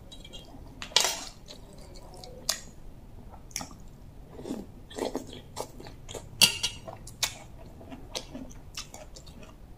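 Close-up chewing and biting of pieces of bamboo shoot from a soup, with short, sharp mouth clicks and smacks scattered through, the loudest about a second in and just past six seconds.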